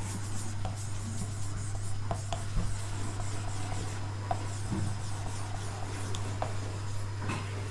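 Marker writing on a whiteboard: light rubbing strokes with a few small ticks as the letters are formed, over a steady low hum.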